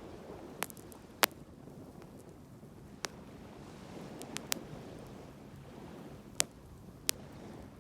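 Bonfire crackling, with a handful of sharp, separate pops of burning wood over a low, steady wash of sea waves and wind.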